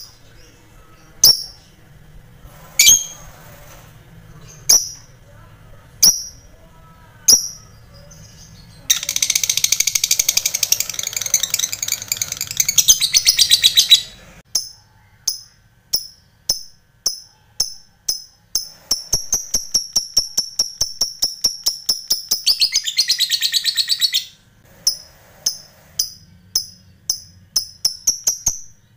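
A lovebird calling. First come single sharp high calls about every second and a half. About nine seconds in it breaks into a long, fast chattering trill, then a run of rapid clicking chips that merges into a second long trill. It ends with separate chips again. Indonesian keepers call this 'ngetik' running into 'ngekek panjang', the long chatter of a fighting lovebird.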